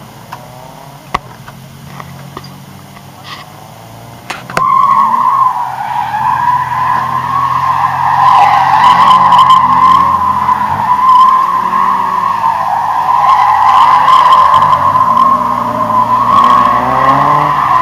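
A drifting car's tyres squealing as it spins circles, one long, steady screech that starts suddenly about four and a half seconds in and holds to the end. The car's engine is heard under it, and alone at lower level before the squeal begins.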